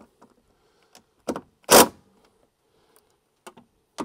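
DeWalt cordless driver run in two brief trigger pulls to snug a 10 mm bolt: a short whirr about a second in, then a louder one just under two seconds in, with light clicks of the tool being handled.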